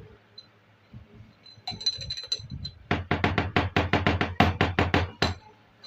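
Miniature plastic toy kitchen pieces being handled: a few light clinks with a short ringing tone about two seconds in, then a fast, even run of sharp clicks, about five a second, lasting a little over two seconds.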